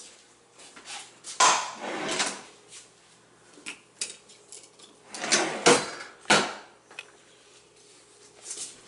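Wooden kitchen drawer sliding, with knives and utensils rattling and clinking inside as a knife is picked out: a few scrapes and some sharp clicks.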